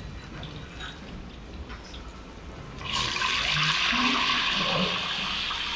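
Kitchen tap turned on about halfway through, water running steadily into a sink with an even rushing hiss. Before it there are only a few faint clicks.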